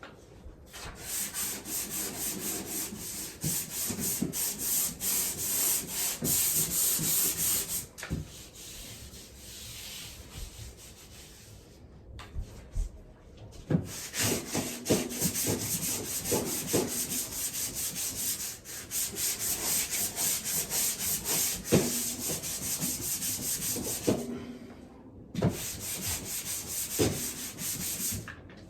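A drywall patch being sanded by hand: quick back-and-forth scraping strokes of sandpaper on the wall, in three bouts with short pauses between them.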